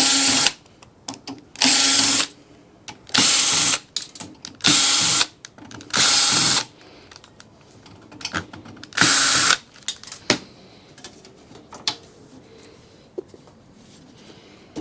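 Cordless power drill-driver running in six short bursts of under a second, spread over about ten seconds, backing out screws from a server chassis. Light scattered clicks and clatter follow near the end.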